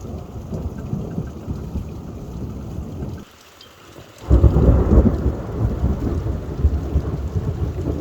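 Thunderstorm: rain with low rolling thunder. The sound drops away abruptly for about a second just past three seconds in, then a louder rumble of thunder comes in and carries on.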